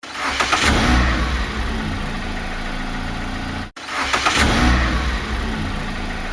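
A car engine starting, briefly revving and settling into a steady run, heard twice in a row with an abrupt cut between the two.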